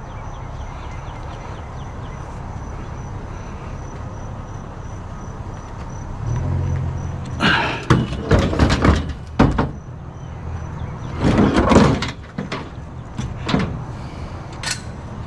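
Bulky metal scrap clanking and scraping in bursts as it is shoved into a pickup truck's bed, over the steady hum of the truck's engine running.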